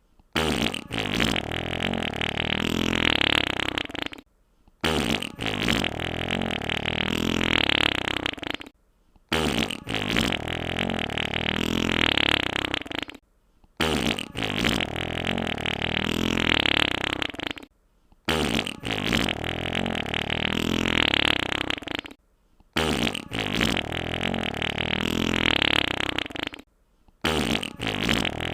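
A wet fart sound effect: about four seconds of wet, sputtering flatulence, repeated over and over with a short silent gap about every four and a half seconds.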